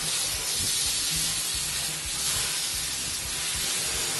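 Shower head spraying water onto a clogged air-conditioning filter, washing the dirt out of it. It makes a steady hiss of spray.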